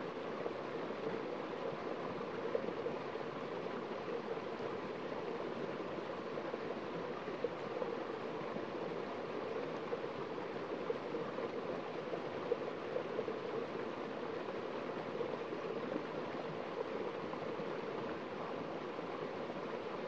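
Small waterfall on a rocky stream: water spilling over a stone ledge and splashing into a shallow pool, a steady rushing.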